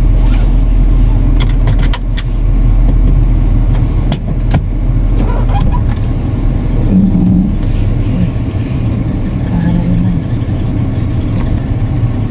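Car engine running, heard from inside the cabin, as a steady low rumble while the car sets off. A few sharp clicks in the first few seconds come from the seatbelt being drawn across and buckled.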